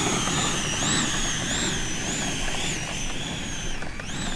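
90 mm electric ducted fan of an RC jet running at high power on its takeoff roll: a high-pitched whine that wavers up and down in pitch, dipping and then rising sharply near the end.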